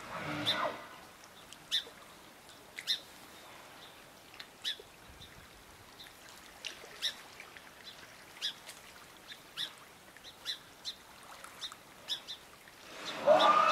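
Small birds chirping in short, high notes about once a second. Near the end, and briefly at the very start, a louder animal call with several tones slides steeply down in pitch, from a sea lion or humpback whale in the water.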